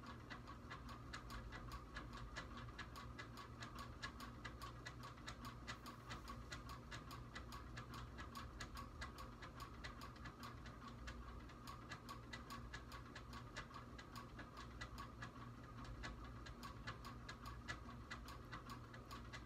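Faint, steady ticking, about four ticks a second, over a low hum.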